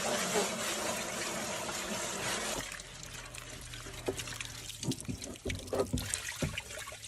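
A steady stream of running water that stops about two and a half seconds in, followed by scattered light knocks and clicks.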